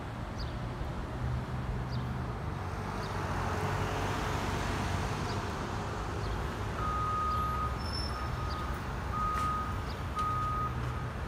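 Heavy demolition machinery running with a steady low engine hum, and a backup alarm beeping about four times in the second half.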